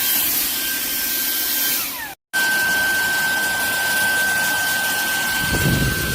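Shark WandVac cordless handheld vacuum's motor running with a steady high whine over a rush of air. About two seconds in the whine falls as the motor begins to wind down, the sound cuts out for a moment, and then the vacuum is running again at a steady pitch.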